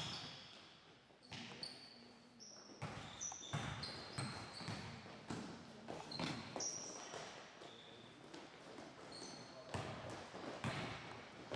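Basketball game on a hardwood court: a basketball bouncing as it is dribbled, sneakers squeaking in short high chirps, and players' feet moving about.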